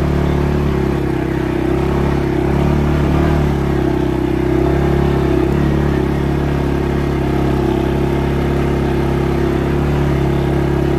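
CFMoto CForce 500 ATV's single-cylinder engine running as the ATV rides along a dirt trail. Its pitch dips and rises a few times in the first half, then holds steady.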